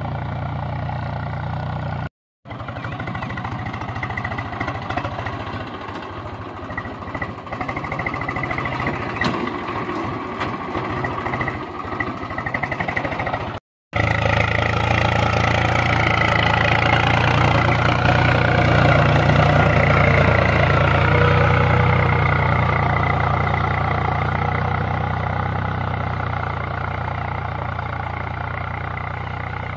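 Swaraj 735 FE tractor's three-cylinder diesel engine running steadily under load while it pulls a reversible plough through the soil. The sound breaks off for a moment twice, at about 2 s and at about 14 s, and is louder after the second gap.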